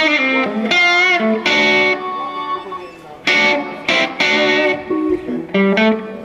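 Electric guitar played in short phrases of held notes with gaps between them, one note wavering in pitch about a second in.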